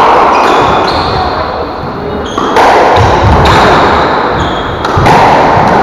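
Squash rally: the ball struck by rackets and slapping off the court walls, loud hits about every two and a half seconds, each with a long echo in the enclosed court, and smaller knocks in between.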